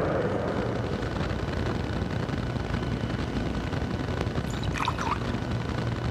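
Liquid poured from a small cruet into a chalice, a brief trickle about four and a half seconds in, over a steady low hum and hiss.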